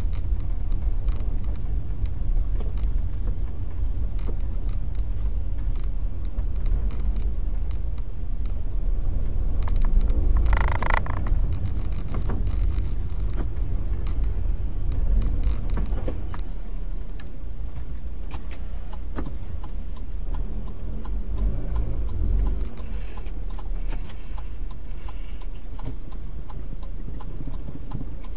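Low steady rumble of a car driving, as picked up by a dashboard camera. About ten seconds in there is a brief, louder, higher-pitched sound.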